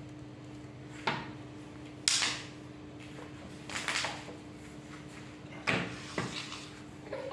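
R for Rabbit Road Runner kids' kick scooter's folding stem being worked open by hand: about five sharp clunks and clicks, the loudest about two seconds in.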